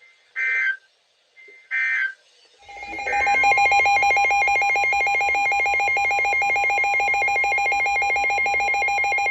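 Emergency Alert System tones: two short bursts of warbling SAME header data, then a loud, steady two-tone attention alarm with a fast rattly pulse, announcing the start of a new warning broadcast.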